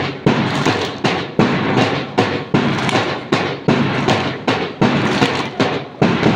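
Steady drum beat keeping time for a mass PT drill, about two and a half strokes a second, with each stroke ringing briefly. It stops near the end as the exercise finishes.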